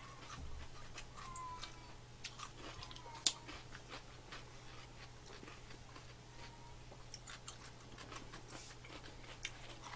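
Quiet eating sounds: scattered small clicks of chewing and mouth smacks, with one sharper click about three seconds in.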